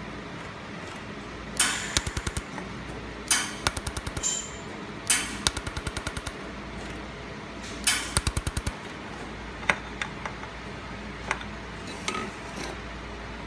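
Handheld laser welder firing on stainless steel: four bursts of rapid crackling pops, each about a second long, followed by a few single clicks, over a steady background hiss.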